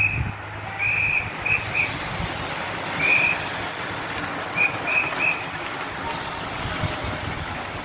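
A race marshal's whistle blown in short blasts, about eight in all over the first five seconds, as a bunch of racing bicycles passes with a steady rush of tyres and freewheels.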